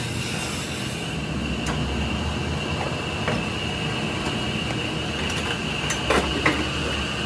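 Powered plate rolling machine running steadily with a constant high whine over a low hum as its steel rollers bend a sheet of steel into a tube. A few sharp metal clicks about six seconds in.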